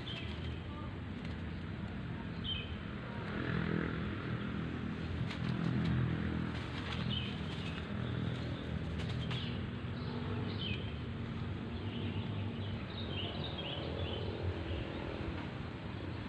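Small birds chirping in short, repeated calls over a steady low engine hum that swells for a few seconds around the middle.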